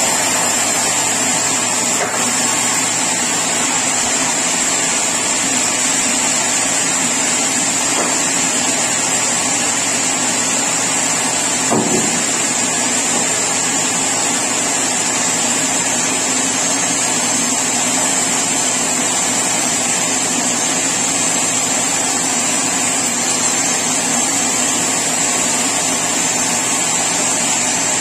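Sawmill saw machinery running steadily, a loud even mechanical din with a steady high whine over it, and one brief knock about midway.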